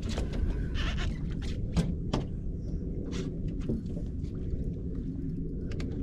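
Steady low wind rumble on the microphone aboard an open boat, with scattered sharp knocks and clicks throughout.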